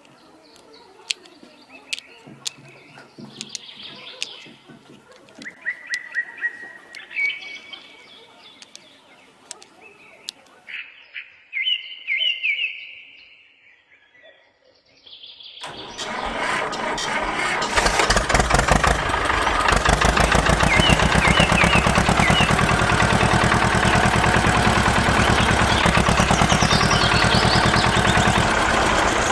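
Birds chirping with scattered sharp clicks, then after a short near-silent gap a motor starts about halfway through, builds up over a couple of seconds and runs steadily with a fast, even chatter.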